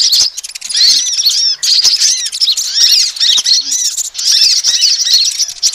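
Sunbird lure recording of kolibri ninja and crimson sunbird calls: rapid, high-pitched chirps, many overlapping, coming in bursts with brief dips about every second.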